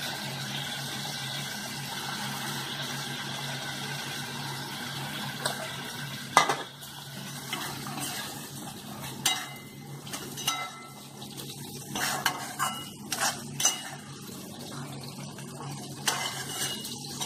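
A spatula stirring and scraping in a metal kadai of thick masala gravy as whole boiled eggs are added and turned, with irregular knocks and clinks against the pan from about six seconds in. A steady low hum runs underneath.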